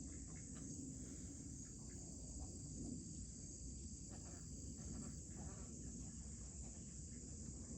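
Steady high-pitched chorus of evening insects, one thread of the trill dropping out about five seconds in.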